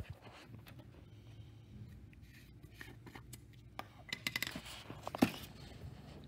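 Quiet room tone, then a cluster of light clicks and knocks about four seconds in, with one louder knock a second later: small objects and containers being handled on a lab bench.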